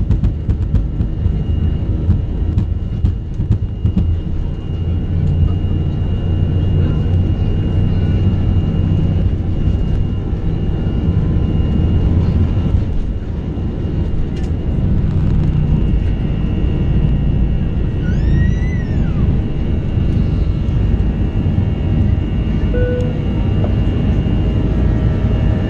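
Airbus A321 takeoff heard from inside the cabin: the jet engines at takeoff thrust over a heavy, steady runway rumble through the airframe, with a few sharp knocks from the wheels at first, continuing as the aircraft lifts off and climbs.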